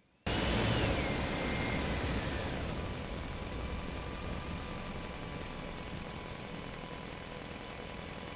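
Tractor engine sound effect, starting abruptly with a whine that falls over the first couple of seconds, then running steadily and slowly getting quieter.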